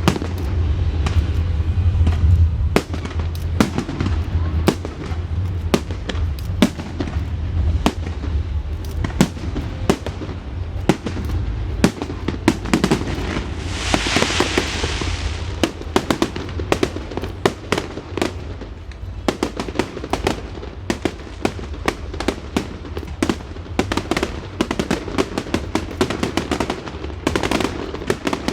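Fireworks display: a dense run of sharp cracks and bangs, with deep booms in the first few seconds and a hissing crackle swelling up about halfway through.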